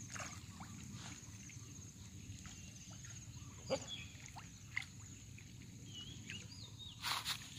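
Outdoor rural ambience: scattered short bird chirps and whistles over a steady high buzzing drone and a low steady rumble, with a sharp click about halfway and a brief noisy burst near the end.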